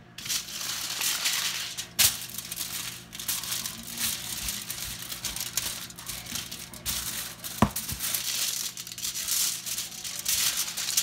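Hands forming seasoned ground beef into a burger patty: continuous crinkling and squishing, with two sharp knocks, one about two seconds in and one past the middle.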